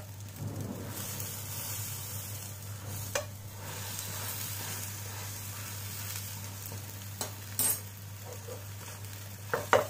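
Egg batter frying in an oiled nonstick pan on a low flame, a steady gentle sizzle. A few light clicks of a metal spoon and silicone spatula against the pan as the omelet is rolled.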